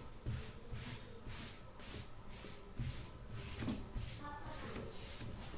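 Writing strokes on a board: a scratchy rubbing that repeats two or three times a second, with a brief squeak about four seconds in.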